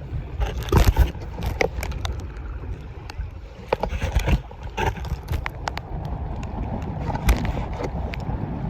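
Wind rumbling on the microphone over open lake water, with scattered knocks and thumps from handling the gear and the fish.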